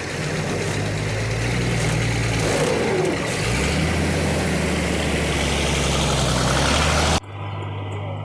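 A motor vehicle's engine running with loud road and wind noise; its pitch steps down about three and a half seconds in. The sound cuts off abruptly near the end, leaving a quieter steady hum.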